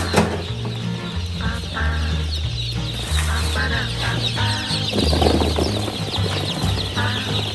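A large crowd of newborn chicks peeping continuously, many short high chirps overlapping, over background music with a steady bass line.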